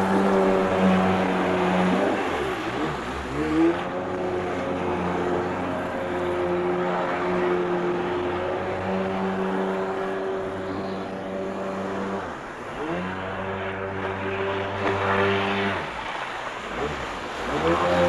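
Kawasaki stand-up jet ski engine running at speed; three times the throttle is eased off and opened again, so the pitch drops and climbs back, about two, twelve and sixteen seconds in.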